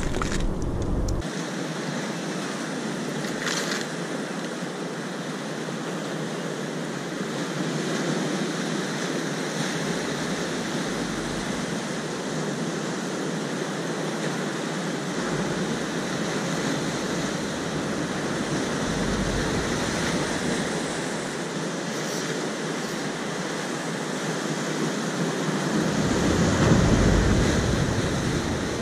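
Sea surf breaking and washing over shoreline rocks, a steady rushing with a louder surge near the end.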